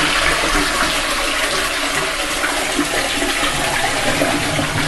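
Toilet flushing, water rushing steadily through the bowl of a toilet that has just been unblocked.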